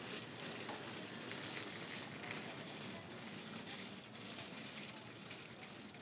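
Open-air street market background noise: a steady, hiss-like wash of bustle with no distinct voice standing out.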